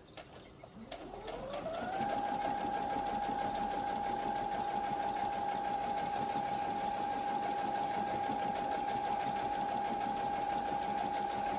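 Electric sewing machine starting up, its motor whine rising over the first two seconds, then running steadily at speed as it stitches.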